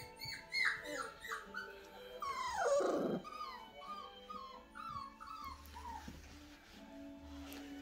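Young puppy whimpering: a string of short, high whines that each slide downward, with one longer whine gliding steeply down in pitch about two and a half seconds in.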